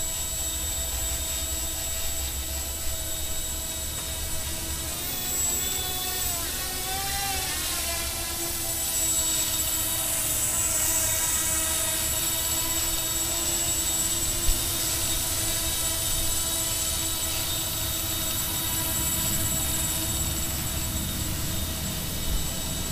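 Xaircraft X650 quadcopter's four electric motors and small propellers giving a steady high whine and buzz in flight. The pitch wavers and bends about five to seven seconds in as the motor speeds change, then settles again.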